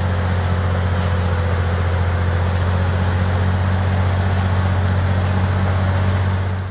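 Heavy logging truck engine running at a steady speed, a deep even drone that fades out at the very end.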